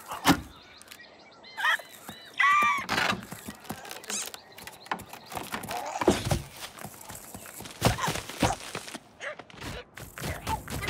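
Cartoon sound effects: a sharp thump just after the start, a few short high-pitched warbles about two seconds in, then a run of separate knocks and quick footfalls.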